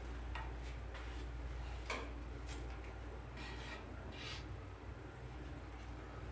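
Faint rustling and a few light ticks as silk flower stems and leaves are handled and pushed into a basket arrangement, over a low steady hum.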